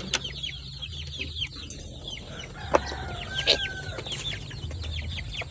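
A group of young KUB kampung chickens peeping constantly in short, high, falling chirps, with one louder, longer call about three seconds in.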